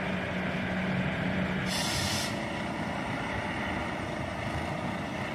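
Volvo heavy-haul truck pulling a long low-loader trailer, its diesel engine running steadily. A short air-brake hiss comes about two seconds in.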